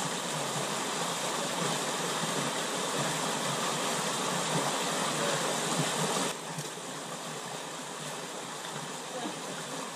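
Small rocky stream rushing steadily over stone. The sound drops a little quieter about six seconds in.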